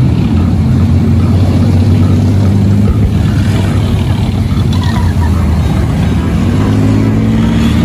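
Sound effect of an armoured tank's engine running with a steady, loud low rumble, rising slightly in pitch near the end.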